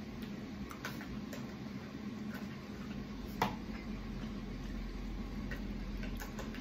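Scattered light clicks and taps of a spoon against plastic food containers and hard taco shells, with one sharper tap about three and a half seconds in, over a low steady hum.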